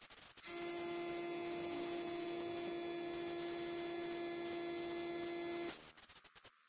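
Paint spray gun spraying a coat of paint: a steady hiss of air with a hum-like tone, starting abruptly about half a second in and cutting off near the end as the trigger is released.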